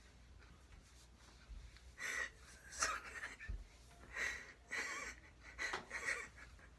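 A person breathing audibly in a series of short, breathy huffs, about six in all, starting about two seconds in.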